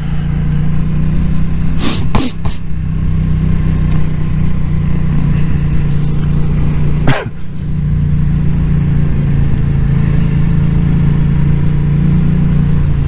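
Yamaha MT motorcycle engine running steadily under way, with wind rushing past. A few sharp cracks come about two seconds in, and a single crack near the middle is followed by a brief dip in the engine note before it picks up again.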